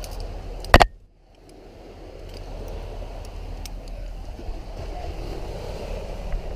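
Steady rush of wind and surf noise on the microphone, with a sharp double knock about a second in. The noise drops out briefly after the knock and builds back, with a few faint clicks later on.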